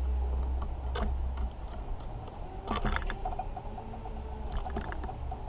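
Grey squirrel landing on a wooden bird table and picking through loose seed: a few scattered clicks and scrapes, a cluster of them about halfway through, over a steady low rumble.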